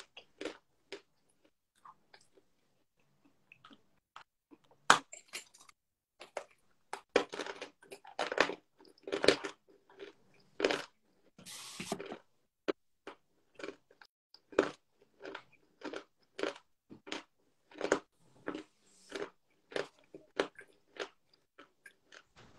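Dry edible clay being bitten and crunched between the teeth close to the microphone. The crunches are sparse at first, then come at one or two a second from about five seconds in.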